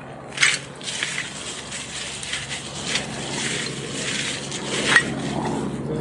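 Rustling and clinking of litter being picked up and handled, with a louder scrape about half a second in and a sharp click near the end.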